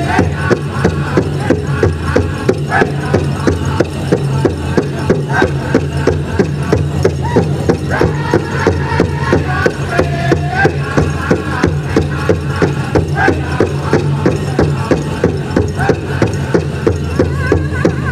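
Powwow big drum struck in a steady, fast beat by a drum group singing high-pitched over it: a chicken dance song.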